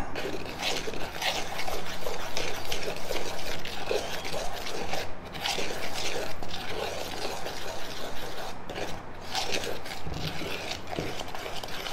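Metal spoon stirring and scraping dry engobe powder (clay, frit and pigment) around a plastic bowl, a rhythmic scraping about twice a second: the dry ingredients being mixed before water is added.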